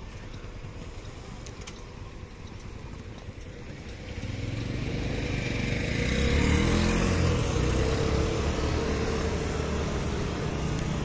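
Street traffic of motor scooters and cars. About four seconds in it grows louder as a vehicle passes close, its engine pitch rising and then falling.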